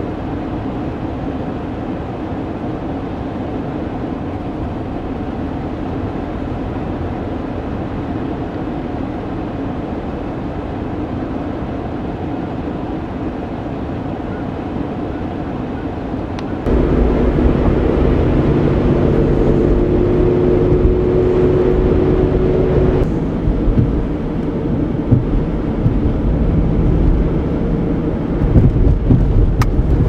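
Steady vehicle running noise, heard from inside a car. About seventeen seconds in it jumps louder, with a deeper rumble and a steady hum.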